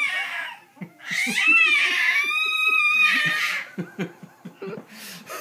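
A baby's long, high-pitched squeal, starting about a second in, rising and then held for some two and a half seconds. Under it and after it, a man gives short chuckles.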